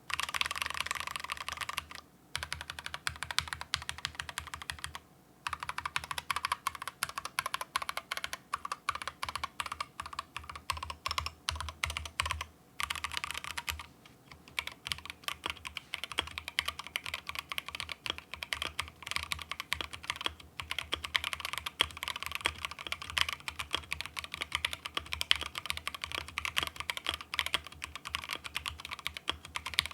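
Continuous typing on an Akko MOD007 mechanical keyboard fitted with Ajazz Peach linear switches: a dense run of key clacks, with short pauses about 2, 5 and 14 seconds in.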